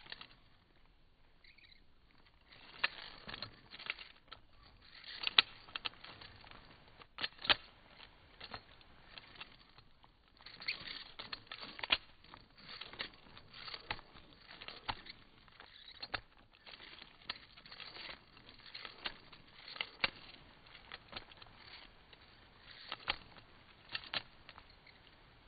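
Irregular small clicks, taps and scratchy rustling of objects being handled close to the microphone, with a few sharper clicks, the loudest about five and seven seconds in.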